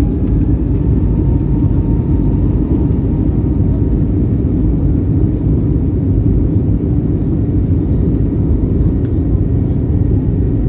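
Airbus A320-family airliner's jet engines at takeoff thrust, with the rumble of the wheels on the runway, heard from inside the cabin during the takeoff roll: a loud, steady low rumble.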